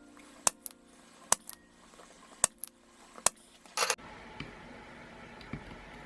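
Sharp metallic clicks and light taps of hand tools on a power supply circuit board, about five spaced strikes, then a brief scrape near the end.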